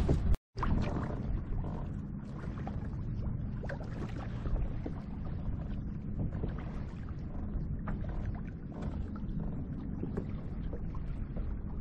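Wind on the microphone and water lapping against a kayak's hull, steady, with a few faint ticks and a brief dropout to silence about half a second in.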